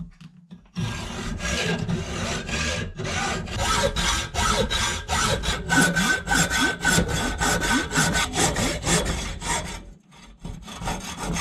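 Hacksaw cutting through a bolt clamped in a bench vise, in rapid steady back-and-forth strokes; the sawing pauses briefly near the end, then a few lighter strokes follow.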